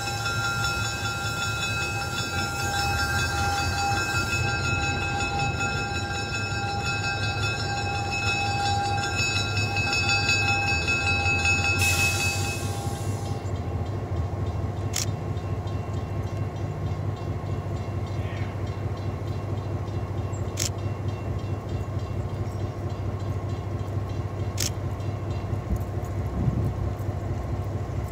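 EMD SW9 diesel switcher locomotive with its V12 engine running as it moves its coaches slowly, a steady high-pitched squeal over the engine's low rumble for about the first twelve seconds. A short hiss follows, then the engine idles with a few sharp clicks.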